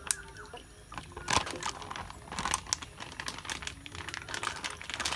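Plastic packet of cooking oil crinkling and crackling in the hand as it is squeezed and emptied into a frying pan, in a quick irregular run of crackles that grows busier about a second in.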